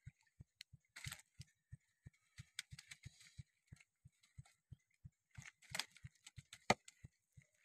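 Faint rustling and crackling of a fishing net being handled among dry reed stalks, in scattered clusters with a sharper crack near the end. A soft low thud repeats about three times a second under it.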